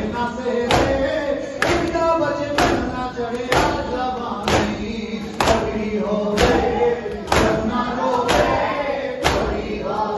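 Matam: a crowd of men beating their chests with their hands in unison, a sharp collective slap about once a second, keeping time with male voices chanting a noha.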